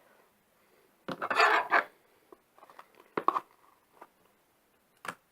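Fluffy slime being handled with a bowl and spoon: a short scraping rustle about a second in, then a few light clicks and knocks.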